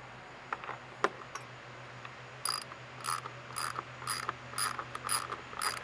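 Hand socket ratchet wrench driving a lag bolt into a metal post-support bracket on a deck: a few loose clicks, then from about two and a half seconds in, short ratcheting strokes at about two a second.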